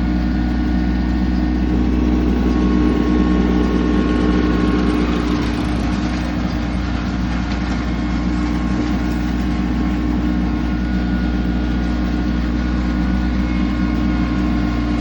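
Utility tractor engine running steadily at about 2,400 rpm while pulling a hay rake, a constant engine drone with a slight dip in loudness about halfway through.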